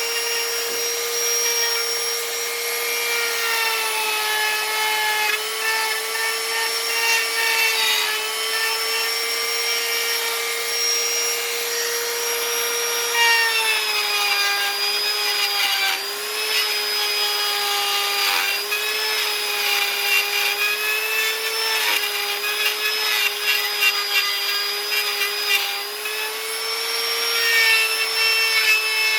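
High-speed electric power carving tool whining steadily as it cuts and rubs into wood. Its pitch wavers slightly as it loads, and drops a little about halfway through.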